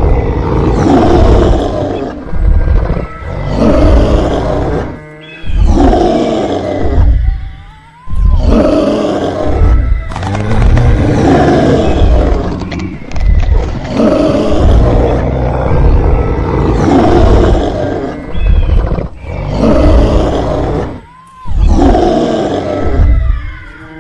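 Dinosaur roar sound effects: a rapid string of loud roars, a new one every second or two.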